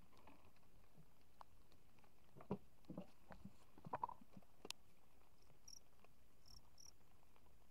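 Near silence broken by a handful of soft clicks and knocks around the middle, then three short high chirps near the end.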